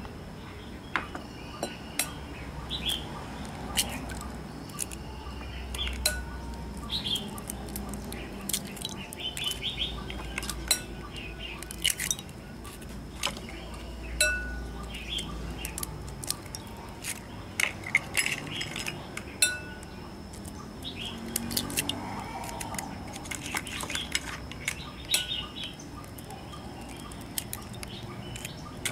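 Eggs cracked one after another into a cut-glass bowl: repeated sharp taps and clinks of shell against glass. Birds chirp in the background.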